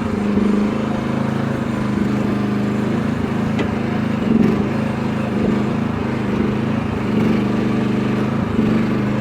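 Small engine of a Chinese mini excavator running steadily while the machine digs, its note swelling briefly a few times as the hydraulics take load.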